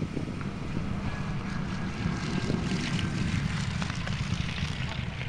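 P-51 Mustang's Packard Merlin V-12 engine running at takeoff power as the fighter accelerates down the runway, the propeller and engine sound getting louder about two seconds in.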